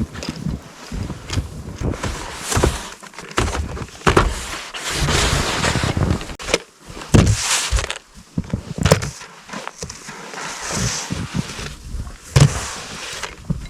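Footsteps crunching irregularly through deep fresh snow, with low rumbling handling or wind noise on the microphone.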